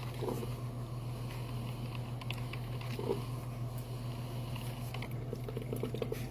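Compact grind-and-brew drip coffee maker in its brewing stage: a steady low hum under light pattering as hot water drips through the grounds, with a quick run of gurgling pulses near the end.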